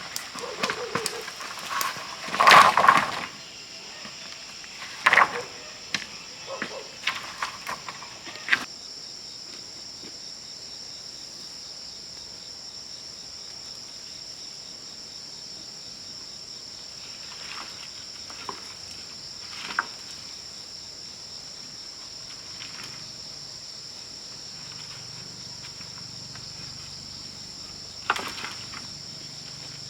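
Steady, high-pitched drone of insects, crickets or similar, continuing throughout. Scattered knocks and clatters from work being done, most of them in the first third and loudest about three seconds in, with a few more later.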